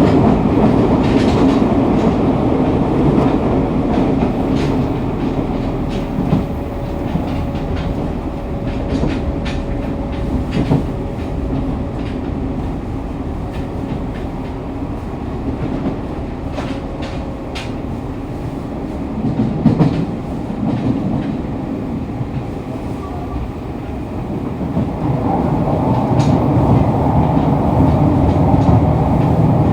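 Fukuoka City Subway 2000 series electric train running at speed, heard inside the car at floor level: a steady low rumble of wheels and motors with scattered clicks over rail joints and a faint steady tone through the middle. The running noise grows louder again near the end.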